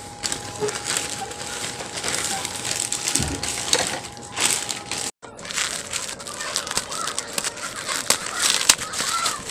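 Dense crinkling and crunching of something being handled, with a faint steady tone underneath that stops at a cut about five seconds in.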